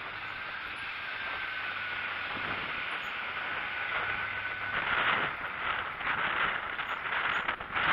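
Bicycle coasting down a steep street: steady wind and tyre hiss, with a thin, slightly falling squeal from the brakes held for about four seconds. After that come bumps and rattles over rougher pavement.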